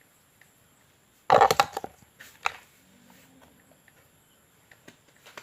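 A Play-Doh tub being opened by hand: a quick cluster of sharp plastic clicks and knocks about a second and a half in, another click a second later, then a few small taps.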